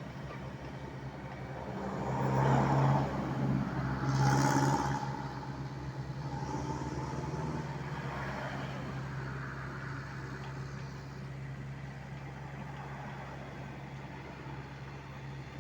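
Heavy-equipment engine running with a steady low hum. It swells louder for a few seconds about two seconds in, then settles back.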